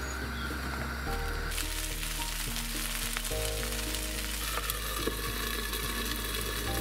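Green beans sizzling as they fry in hot oil in a pan, the sizzle growing louder about a second and a half in.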